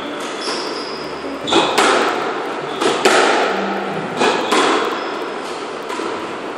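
Squash ball being hit back and forth: sharp echoing cracks of racket strikes and the ball hitting the walls, in three pairs a quarter-second apart, with short squeaks of court shoes on the wooden floor.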